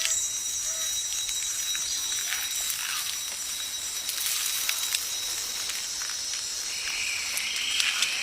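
Natural ambience: a steady crackling hiss with scattered faint clicks and two thin, steady high-pitched tones, with a brief brighter rustle near the end.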